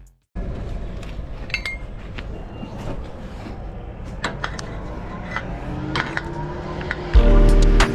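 Scattered metallic clinks and knocks over a steady background rumble; music starts about seven seconds in.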